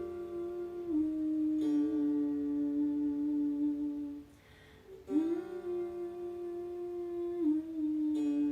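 A voice humming long, held notes as meditative sound, each sustained for several seconds and stepping slightly down in pitch, with a breath pause about four seconds in before the next note slides up into place.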